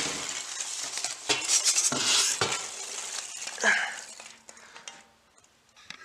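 Styrofoam packing peanuts rustling and spilling against cardboard as a siren housing is lifted out of its box, with a few sharp crunches and a short, louder squeak about three and a half seconds in; it falls much quieter after about four seconds.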